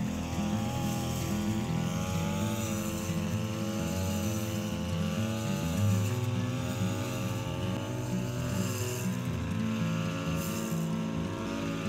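Backpack brush cutter's small engine running as it cuts grass, its pitch wavering up and down with the throttle and dipping briefly about nine seconds in.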